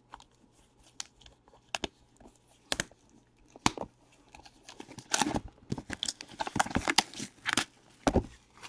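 Plastic shrink-wrap on a sealed trading-card hobby box crinkling and tearing as fingers pick at it and peel it off. Scattered crackles at first, turning into a busier run of crinkling a little past halfway.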